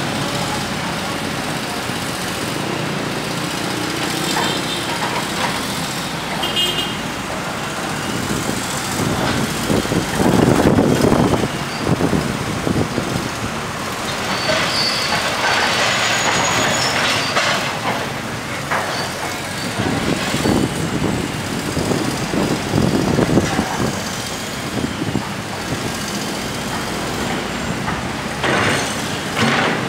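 Komatsu PC200 diesel hydraulic excavator running as its bucket digs out a broken sidewalk, louder in two stretches about ten and twenty seconds in, with street traffic passing.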